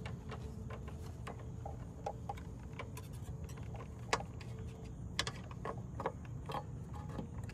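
Scattered small plastic clicks and taps as a replacement headlight bulb is worked into its socket at the back of a 1998 Nissan Altima's headlight housing. A low steady hum runs underneath, and the sharpest click comes about four seconds in.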